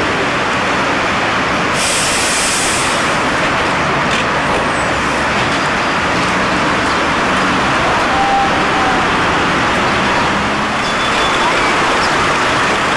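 Steady street traffic noise from passing road vehicles, with a short hiss about two seconds in.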